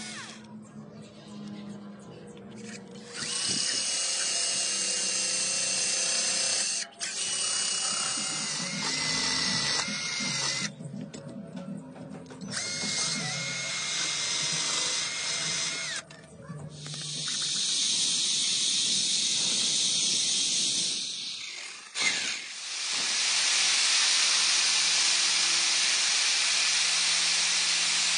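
Electric drill spinning a homemade thin metal cutting disc on a bolt as it cuts into PVC pipe. It runs in several separate bursts: at first the motor whine shifts in pitch, and in the later runs the disc grinds through the plastic with a steady hiss.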